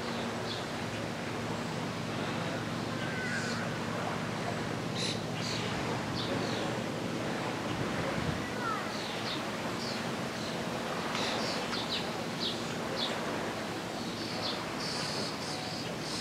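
Birds chirping and calling in short, scattered high notes over a steady low rush with a faint hum beneath.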